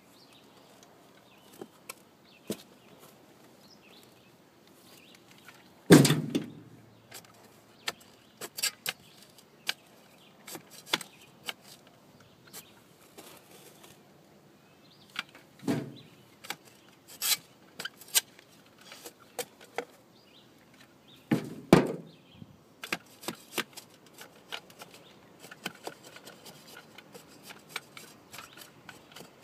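Square steel spade chopping into turf and soil to cut a square hole in the sod: three heavy strokes several seconds apart, with many lighter crunches and scrapes of the blade and dirt between them.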